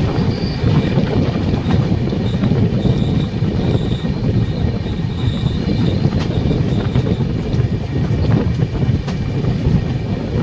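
Passenger train running on the rails: a steady heavy rumble of wheels on track, with faint high wheel squeal and a few sharp clicks from the rail joints.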